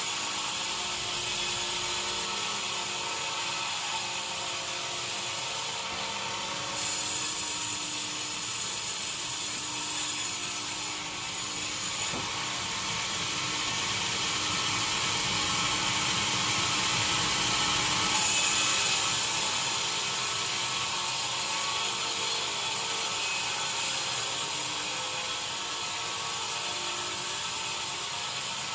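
Sawmill machinery running steadily, a constant mechanical whine over a broad hiss, with the mix shifting abruptly a few times.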